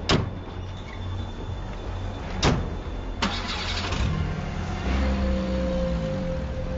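Three sharp knocks in the first few seconds, then a car engine starts about four seconds in and keeps running.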